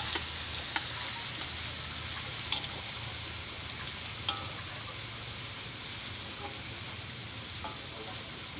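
Garlic sizzling steadily in hot oil in a pan, sautéed until fragrant, with a few light clicks from the stirring utensil against the pan.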